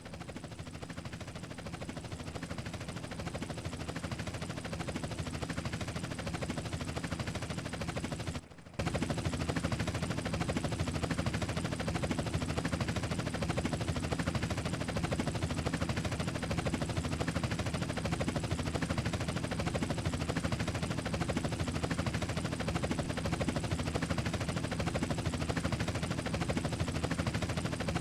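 Helicopter rotor chopping in a fast steady beat, growing louder over the first several seconds. It drops out for a moment at an edit, then carries on steady and louder.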